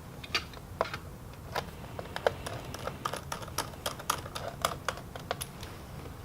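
Small screws and a precision screwdriver clicking and tapping against a laptop's plastic back panel while the back-plate screws are put in: an irregular run of light, sharp clicks.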